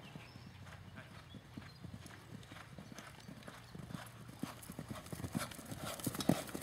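Hoofbeats of two horses cantering on a dirt track, growing louder as they come close.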